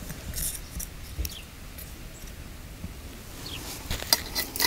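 Faint scattered clicks and taps of small dishes and containers being handled, a few more close together near the end.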